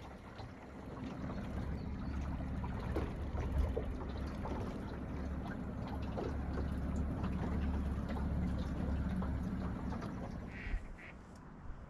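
Small boat's outboard motor running steadily under way, easing off and fading near the end.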